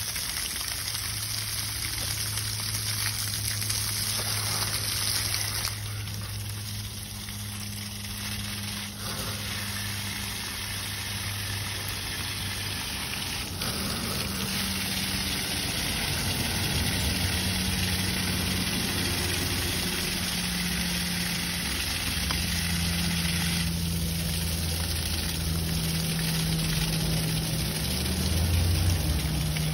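Mains water spraying out of an open water service pipe under full pressure, a steady hiss. Beneath it runs a low hum that changes pitch in steps in the second half.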